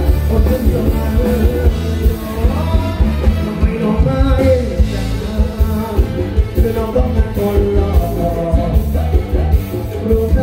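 Live rock-pop band playing through a PA system, with a male singer singing over electric guitars, bass and a steady drum beat.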